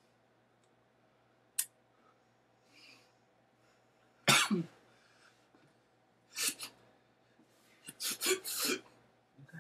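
A person coughing and exhaling in short, breathy bursts: a loud one about four seconds in, two more a couple of seconds later and a quick cluster near the end. There is a single sharp click about a second and a half in.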